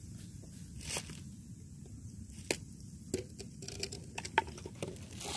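Small fire of dry sticks crackling, with irregular sharp snaps and pops, most of them clustered past the middle, over a steady low rumble.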